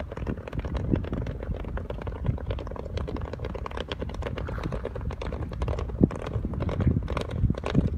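Horses' hooves on wet sand: a rapid, irregular patter of hoofbeats, louder and denser over the last few seconds as the group of horses comes closer, over a low steady rumble.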